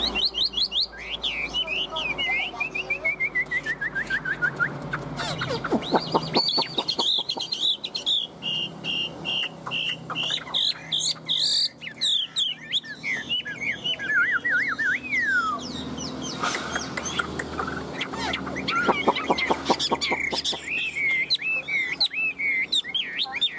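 Chinese hwamei singing a long, varied song: clear whistled phrases, notes that slide down in pitch, and bursts of rapid rattling trills.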